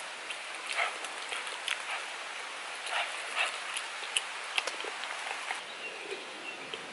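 Close-up eating sounds: wet chewing clicks and lip smacks, about two a second, over a steady hiss. Near the end comes drinking from a husked coconut.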